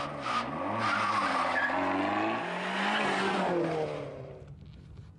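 Small car pulling away hard, tyres squealing and engine revving, then fading out after about four seconds.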